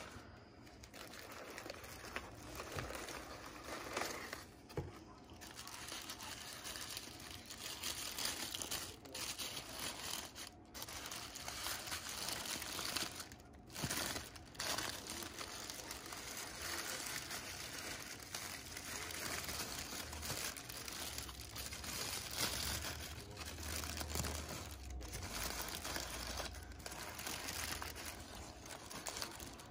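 Packing paper and tissue paper crinkling and rustling as hands unwrap them, with a few brief pauses.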